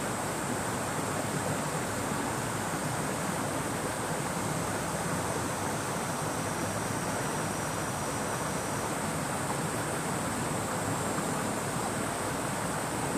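The Hozu River flowing steadily, a continuous even wash of water. Cicadas buzz over it in a steady high drone.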